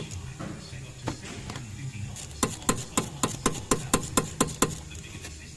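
A quick run of about ten sharp metallic clicks, roughly four a second, starting about two seconds in: a ratchet wrench working loose the bolt of the camshaft position sensor.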